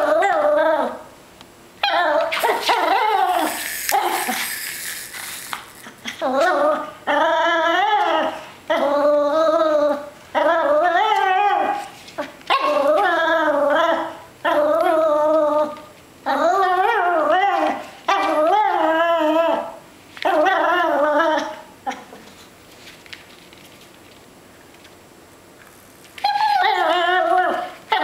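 Papillon puppy whining and yipping in a long series of drawn-out calls of about a second each, wavering up and down in pitch, with a pause of a few seconds near the end.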